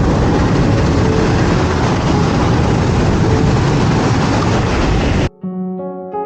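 A loud, steady rushing roar that cuts off abruptly about five seconds in, after which soft piano music begins.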